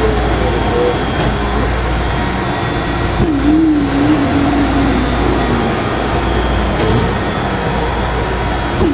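Electric chest percussor buzzing steadily during chest physiotherapy.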